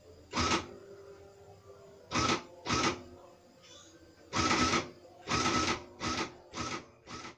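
Canon MP1411-LTSC printing calculator's print mechanism printing lines in about eight short bursts of varying length, its print module running freely after being cleaned of the dust that had jammed it.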